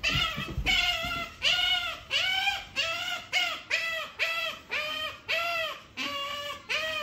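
Asian small-clawed otter giving a long run of short, high squeaky calls, each rising and falling in pitch, about two a second.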